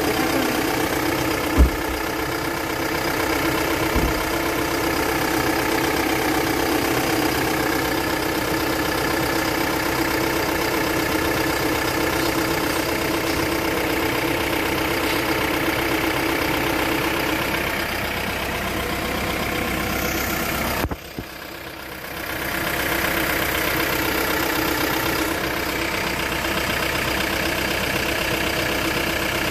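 Hyundai Bongo III diesel engine idling steadily, heard close up at the open engine bay, with two short sharp clicks a few seconds in. About two-thirds of the way through, the whole sound briefly drops away, then comes back.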